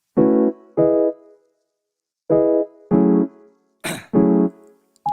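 Background music: a keyboard, piano-like, playing five short, detached chords with pauses between them.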